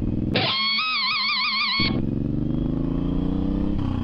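A short electric-guitar sting with a wavering vibrato note plays for about a second and a half near the start, briefly replacing the engine sound. Then the Suzuki M109R's V-twin engine runs under way, its pitch rising steadily as it accelerates, and drops back just before the end.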